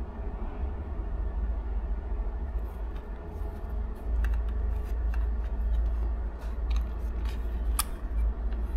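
Small clicks, taps and rustles of a pen and test probe being handled on a workbench over paper, with one sharper click near the end, above a steady low background rumble.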